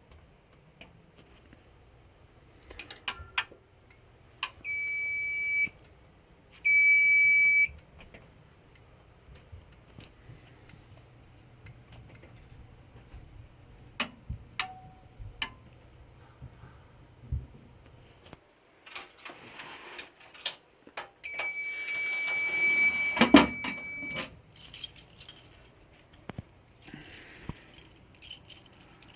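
Fire alarm control panel's built-in buzzer sounding a high, steady beep twice, about a second each, then once more for about three seconds, as the panel goes into alarm and trouble during a panel trip test. Clicks and handling noises sound between the beeps, and keys jangle near the end.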